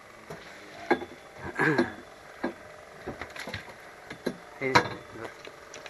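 Several sharp knocks and thumps on board a fishing boat, the loudest near the end, with a brief voice sound in between.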